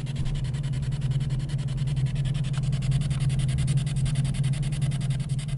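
Steady low drone of a car's engine and tyres heard from inside the cabin while driving slowly.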